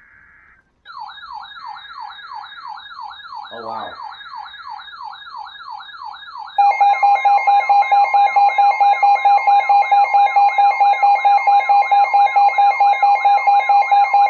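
Emergency Alert System signals: short buzzy bursts of SAME header data, and about a second in a warbling alert siren rising and falling about three times a second. About six and a half seconds in, the loud steady two-tone EAS attention signal starts over the warble.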